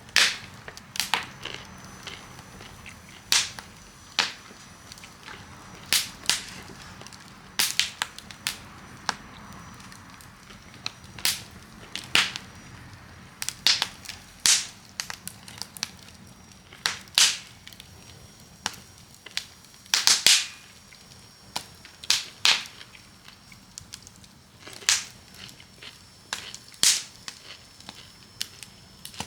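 Wood fire crackling: sharp pops and snaps at irregular intervals, about one a second.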